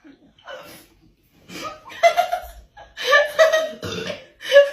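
People laughing: a few faint short sounds at first, then louder repeated chuckling and laughing from about three seconds in.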